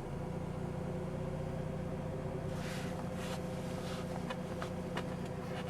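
Mazda RX-8's twin-rotor Wankel engine idling steadily with an even drone, a few faint clicks over it.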